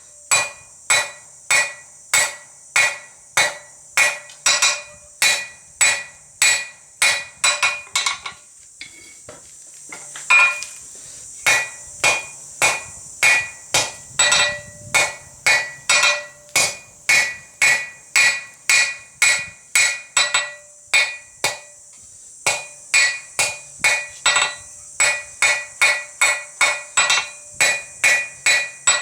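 Steady hand-hammer blows on hot steel bar stock over an anvil, about two a second, each with a short metallic ring. The smith is drawing the bar's end out to a taper. The blows stop for about two seconds a little before the middle, then resume at the same pace.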